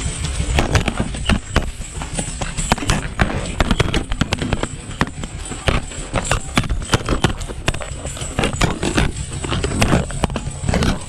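Dense, irregular clattering and banging over a steady low rumble, typical of a machine striking hard material.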